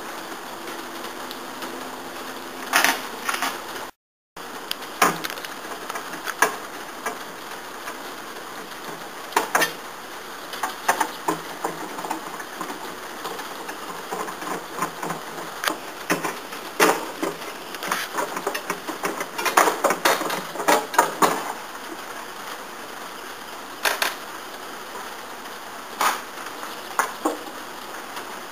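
Scattered clicks, knocks and light metallic clatter of hands working on a solar inverter's sheet-metal cover and wiring compartment, with a thicker run of rattling a little after the middle.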